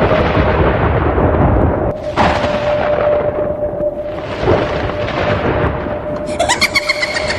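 Horror-intro sound effects: three rumbling, thunder-like crashes, each fading away, about two seconds apart over a steady drone. Near the end a rising tone breaks into a fast stuttering rattle.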